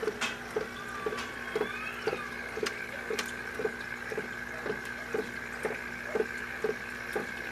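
Aquarium air bubbler running: a steady bubbling from the tank's LED-lit bubble column, with a soft regular pulse about twice a second.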